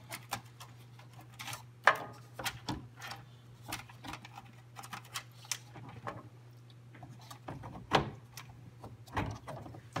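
Scattered clicks and knocks of a PC case's fan mounting frame, with fans attached, being handled and slid back into the case, the loudest knocks about two seconds in and near eight seconds.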